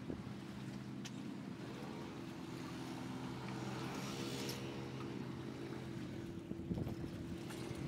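An engine running steadily with a low, even hum, with a brief hiss swelling up midway.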